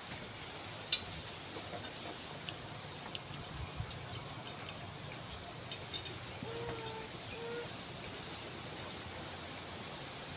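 Spoons clinking against plates a few times during a meal, the sharpest clink about a second in, over a faint high chirp that repeats about three times a second. A short low call sounds twice past the middle.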